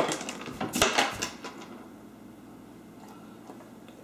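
Clicks and knocks from a large German Shepherd scrabbling about a tiled kitchen floor and bumping the cabinet base while hunting for an ice cube, bunched in the first second and a half.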